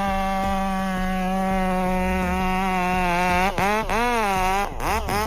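Chainsaw engine running at high, steady speed, then its pitch dips and rises again several times from about three and a half seconds in.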